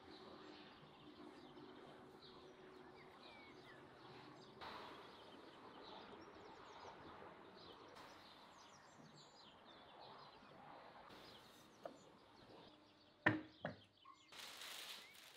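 Faint outdoor background hiss with birds chirping now and then, far off. Near the end comes a single sharp knock, the loudest sound here.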